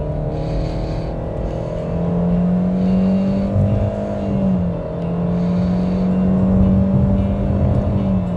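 Fiat Pulse Drive's 1.3 Firefly naturally aspirated four-cylinder engine at full-throttle acceleration through its CVT, heard inside the cabin. It holds a steady high drone that climbs at first and dips briefly about four and a half seconds in, then again just before the end.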